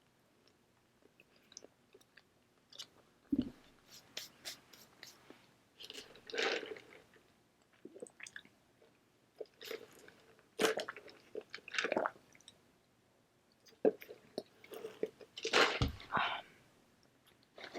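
Close-miked chewing of a mouthful of burger: irregular bursts of wet mouth noises and bites, with a couple of brief low thumps.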